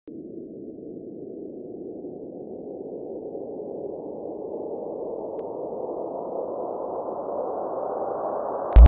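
A synthesized noise riser swelling slowly, growing louder and brighter, then cut off by a sudden deep impact hit near the end.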